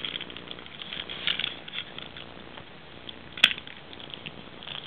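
Small plastic toy figures being handled and set down on a carpet: soft rustling and light taps, with one sharper click about three and a half seconds in.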